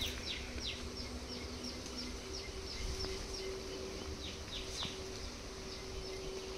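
Runs of short, high chirps, each falling quickly in pitch, repeated about four times a second and coming and going in bursts, over a steady low hum.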